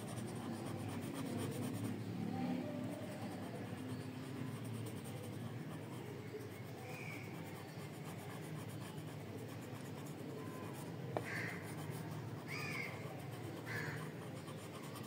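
Coloured pencil scratching back and forth on paper, colouring in a drawing. Near the end a crow caws three times in the background.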